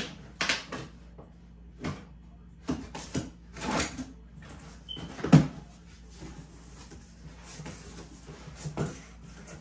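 Cardboard shipping box being opened by hand: packing tape pulled off and the flaps scraped and bent open, in an irregular string of rips, rustles and knocks. The loudest comes about five seconds in.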